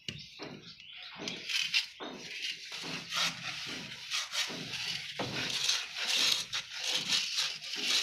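Repeated irregular scraping strokes of a plastering tool working wet sand-and-cement plaster across a wall.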